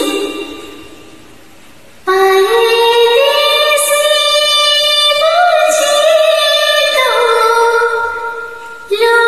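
A woman singing a Hindi film song to karaoke, in long held notes that glide slowly in pitch. A phrase fades out in the first second, a new held phrase starts after a short lull about two seconds in, and another begins near the end.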